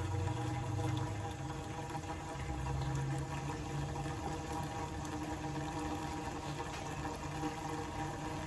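Stale ten-year-old gasoline pouring in a steady stream from the open drain hole of a car's fuel tank into a catch container, over a constant mechanical hum.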